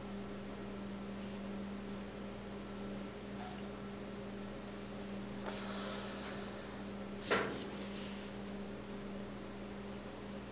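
Steady low electrical hum, with faint rustling of quilt fabric and a long thread being drawn through the layers during hand stitching, and one short sharp tick about seven seconds in.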